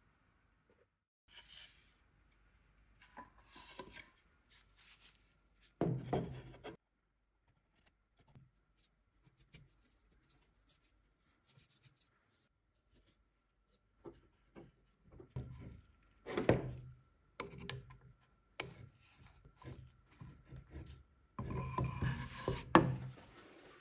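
Intermittent rubbing, scraping and light knocks of old wooden chest boards being handled, with glue being worked into a split in a board with a wooden stick. Near the end comes the loudest, busiest stretch, with sharp clicks, as one-handed bar clamps are set on the board.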